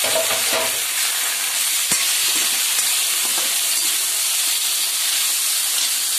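Sliced chalta (elephant apple) frying in hot oil in a steel wok, sizzling steadily while a steel ladle stirs and scrapes the pieces around the pan. There is one sharp metallic tap about two seconds in.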